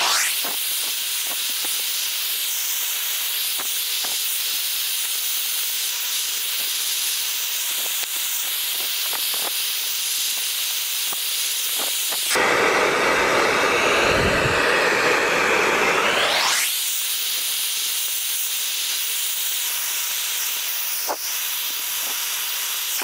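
Handheld hair dryer blowing a steady hiss of hot air onto grip tape, heating it so it softens and sinks onto the footpad. A little past the middle it turns louder and fuller for about four seconds, then rises in pitch and settles back to the steady hiss.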